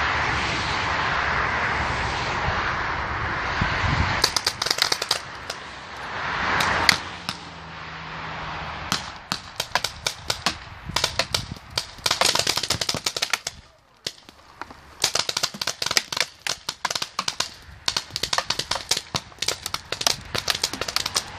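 Hopper-fed paintball markers firing in rapid volleys of sharp pops, starting about four seconds in, with a brief lull near the middle. The first few seconds hold a loud, steady rushing noise.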